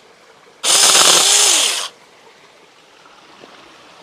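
Saker mini electric chainsaw run in one brief burst of about a second, its motor whine spinning up and then winding down as the trigger is let go.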